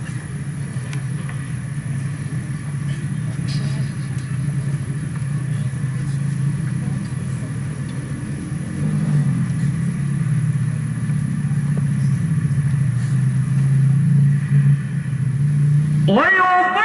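A low, steady rumble through the sound system, then near the end a man's voice sweeps sharply upward in pitch as Quran recitation (tilawah) begins over the public-address system.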